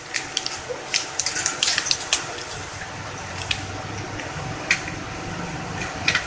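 Sticky slime being kneaded and squished by hand, with wet clicks and pops that come quickly in the first couple of seconds and then more sparsely.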